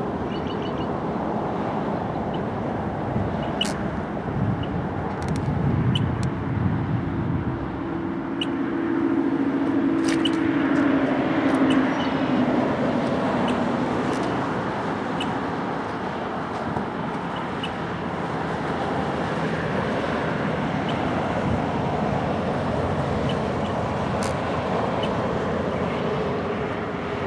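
Steady road traffic noise, with a louder vehicle passing about ten seconds in, and occasional short chirps from a bird calling in alarm.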